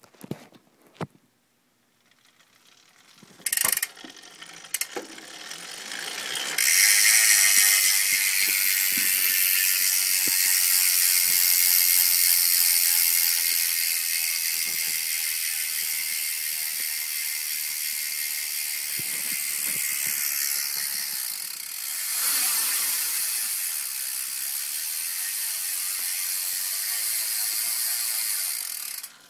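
PowerTap G3 power-meter rear hub's freehub buzzing loudly as the rear wheel coasts, its pawls clicking so fast they blend into one continuous high buzz, like a BMX cassette hub. A few separate clicks come first, then the buzz starts about six seconds in and swells once more later on.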